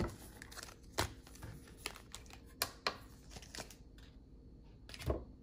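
Trading card packs and cards being handled: crinkling wrapper and several sharp clicks and taps at irregular intervals.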